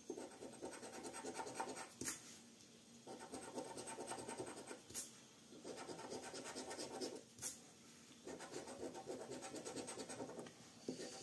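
A metal coin scratching the coating off a Millionnaire scratch-card lottery ticket, in rapid rasping strokes grouped into several short bouts with brief pauses between them.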